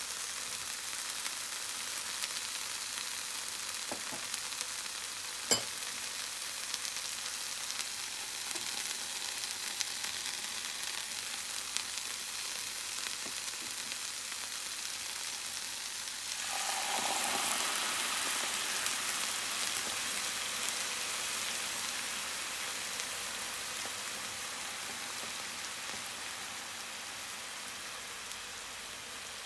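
Onion slices frying in a nonstick pan with a steady, light sizzle. A little past halfway, soy sauce hits the hot pan and the sizzle suddenly jumps louder and brighter, then slowly dies down. A single sharp tap sounds about five seconds in.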